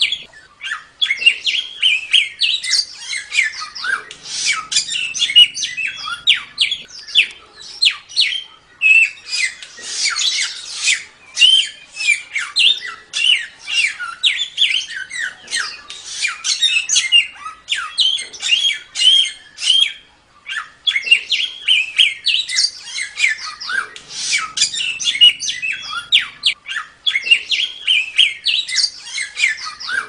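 Samyong songbird singing a continuous rapid chatter of high, quick slurred notes and trills in dense back-to-back phrases, the rapid-fire 'tembak' song used to tutor caged songbirds.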